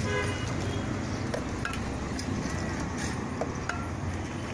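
Wooden stick churning aloe vera juice in a steel mug, with a few short metallic clinks, over steady street traffic noise.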